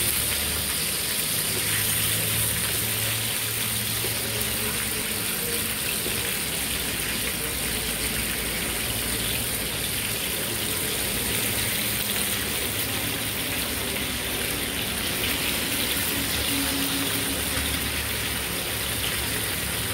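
Rohu fish steaks shallow-frying in hot oil in a frying pan: a steady sizzle.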